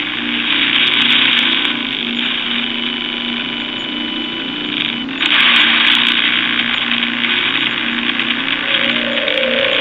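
Spirit box app sweeping through radio stations: continuous static chopped into short fragments of broadcast sound, stepping abruptly louder about five seconds in.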